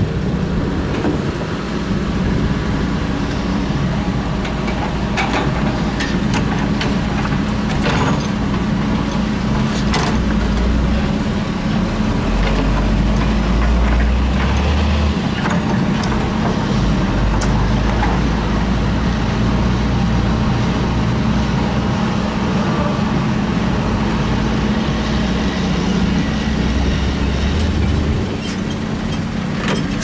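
Diesel engine of a Zoomlion hydraulic excavator running steadily while it digs and loads dirt, its rumble deepening under load from about a third of the way in until near the end. Scattered metallic clanks and knocks sound over it.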